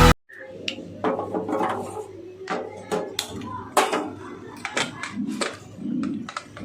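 Irregular clicks, knocks and clinks of kitchen utensils and dishes being handled, over a low steady hum.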